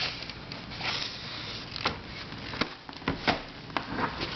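Puzzles and their packaging being handled and moved on a shelf: a rustle about a second in, then scattered light clicks and knocks as pieces are picked up and set down.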